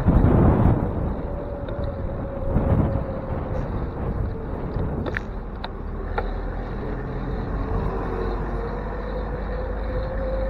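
Street traffic heard from a bicycle's handlebar camera, with wind buffeting the microphone in the first second. A faint steady hum wavers through the middle, and a few sharp clicks come about five to six seconds in.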